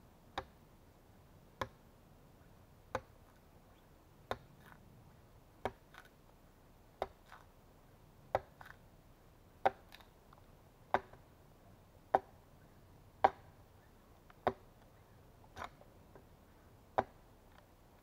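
Axe blows into a log, hewing along its top face: about fourteen sharp strikes at a steady pace of roughly one every 1.3 seconds, growing louder as they go.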